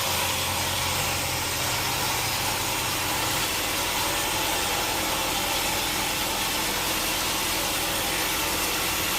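Sawmill machinery running steadily: an engine hum under a constant hiss, with no change in pitch or level.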